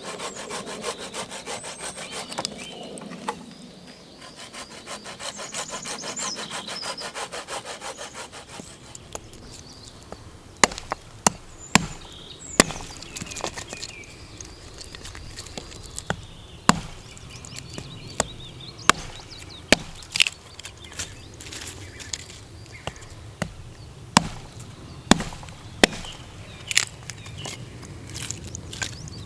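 Wooden-framed bow saw cutting through a branch with quick, even rasping strokes, stopping about eight seconds in. Then a small axe chops sticks on a log: a series of sharp single cracks, one every second or two.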